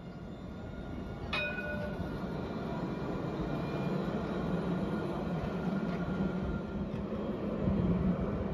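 Alstom Citadis tram passing close by, its low rumble of wheels on rails and traction motors building and holding. About a second in comes a single sharp metallic strike that rings on at several pitches.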